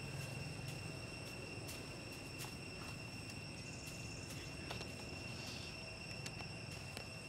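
Forest insects droning steadily in a high, even tone, with faint scattered clicks.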